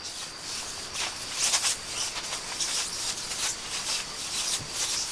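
Dogs' paws scuffling and rustling on a nylon tent groundsheet as they move about, in irregular soft swishes.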